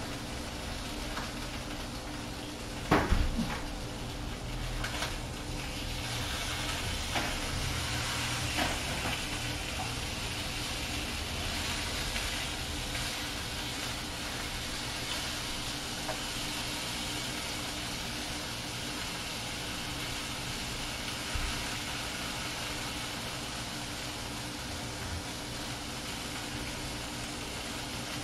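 Za'atar-seasoned chicken pieces sizzling steadily in a nonstick frying pan, with a loud knock about three seconds in and a few lighter clicks soon after while the pieces are moved around the pan.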